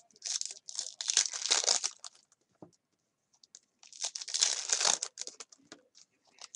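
Plastic wrappers of trading-card packs crinkling and tearing as they are ripped open, in two spells with a short quiet gap between.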